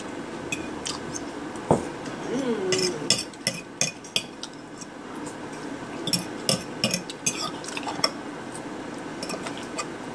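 Metal fork scraping and clinking against a ceramic plate while food is scooped up, in clusters of quick clicks.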